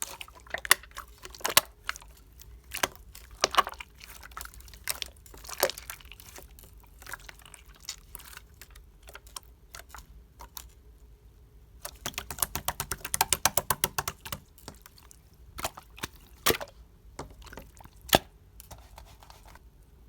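Clear glitter slime being pressed and stretched by hand, giving sticky, wet clicks and pops, with a fast run of crackling clicks in the middle.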